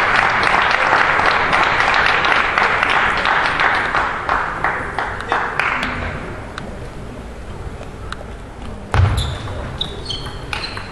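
Audience applauding, dying away over the first six seconds. Near the end a table tennis rally starts: a low thump about nine seconds in, then sharp clicks of the ball and short high squeaks.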